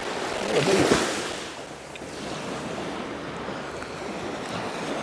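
Sea waves breaking and washing on the shore, with wind on the microphone; one wave swells loudest about a second in and then eases off.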